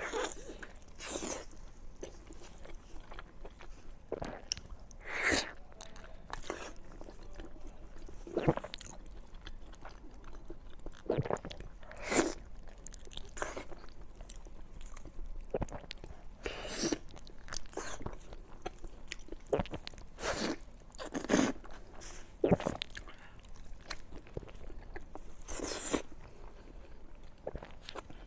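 Close-miked eating of beef on the bone: a person biting and chewing. Irregular, separate loud bites and crunches come every few seconds between quieter chewing.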